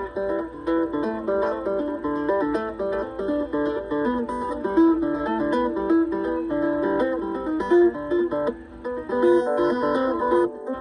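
Acoustic guitar playing an improvised blues, a continuous run of plucked notes and chords.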